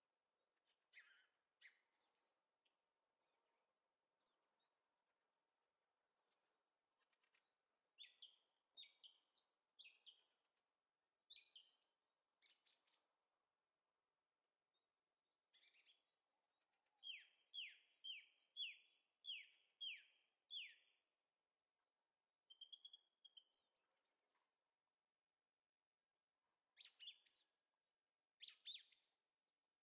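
Birdsong: assorted short chirps and whistled notes, with a run of about seven quick falling notes, roughly two a second, past the middle.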